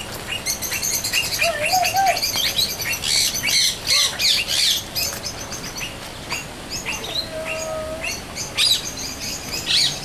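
A dense chorus of many birds chirping and calling in a large walk-in aviary, with quick high chirps overlapping throughout and busiest in the first half. Lower, longer whistled notes come in about two seconds in and again around seven seconds.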